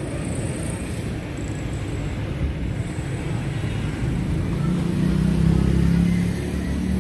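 Steady low rumble of vehicle traffic, with a motor vehicle engine growing louder about five seconds in and then easing off.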